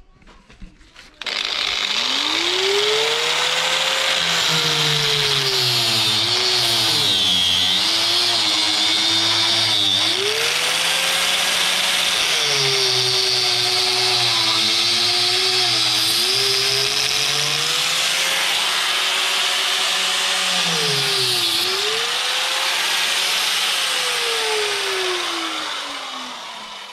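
Handheld angle grinder starting up and running at speed, its pitch sagging and recovering several times as it is worked against metal. It winds down near the end.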